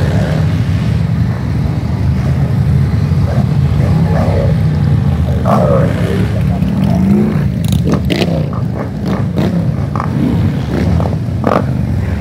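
Harley-Davidson motorcycles' V-twin engines running with a deep, steady rumble, one engine revving up and back down about halfway through. Several sharp clicks or pops come in the second half.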